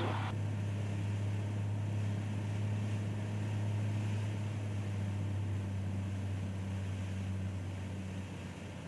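Piper Cherokee 235's six-cylinder Lycoming engine and propeller droning steadily at low approach power inside the cabin, fading somewhat near the end.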